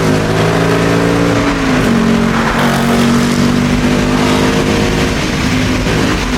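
A car engine running at a steady speed, its pitch stepping down once about two seconds in and then holding steady.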